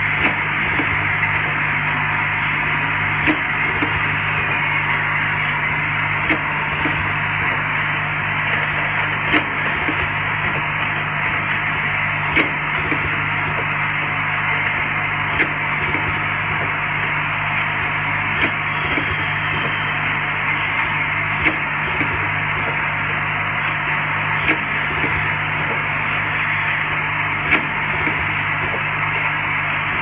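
Automatic glass-bottle filling and capping machine running: a steady hum and buzz from its vibratory bowl feeders, with a sharp click about every three seconds and fainter clicks between.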